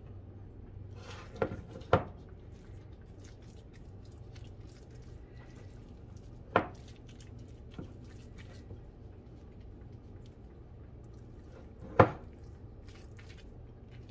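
A utensil working softened butter into a mixture in a bowl, with soft squishing and scraping. It knocks sharply against the bowl twice about a second and a half in, once near the middle, and loudest about twelve seconds in.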